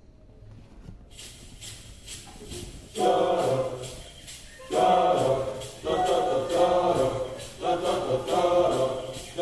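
Music starts up: an even percussion beat comes in about a second in, and a group of voices singing together joins at about three seconds, in phrases with short breaks between them.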